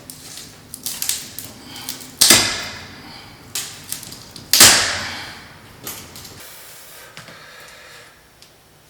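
Handling noises from repair work: scattered clicks and knocks, with two loud sharp hits about two and four and a half seconds in, each ringing briefly.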